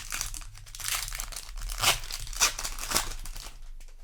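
Foil Magic: The Gathering booster pack wrapper being crinkled and torn, a dense crackle with a few sharp louder crinkles in the second half, dying away near the end.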